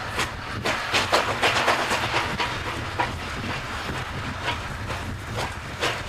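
Steam locomotive working a freight train, its exhaust beating out a regular run of chuffs about two to three a second over the low rumble of the wagons rolling on the rails.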